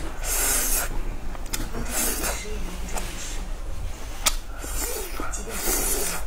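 Close-up eating sounds: grilled meat being bitten and pulled off a bamboo skewer, then chewed, in several short wet bursts with a few sharp clicks between them.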